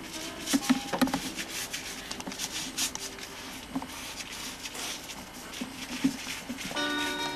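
Paintbrushes dabbing and scrubbing on canvas, an uneven run of short scratchy strokes and taps. Near the end a held musical note comes in.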